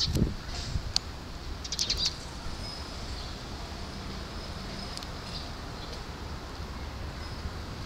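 Eurasian tree sparrows chirping in short high notes, with a quick cluster of chirps about two seconds in and fainter thin calls after, over a steady low background rumble. A brief low thump comes right at the start.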